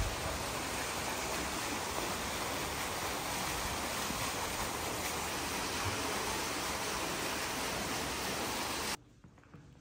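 Small fountain jets splashing into a shallow stone-lined pool, a steady even rush of water that cuts off abruptly about nine seconds in.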